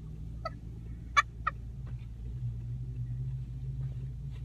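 Steady low hum of a car driving, heard inside the cabin. A few short sharp sounds come about a second in.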